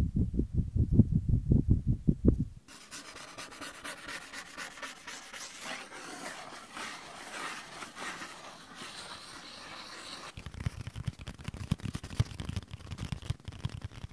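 Sheets of paper handled right at a close microphone: a quick run of dull low taps for the first two and a half seconds, then steady rubbing and rustling of the paper, then quick low taps with small clicks again in the last few seconds.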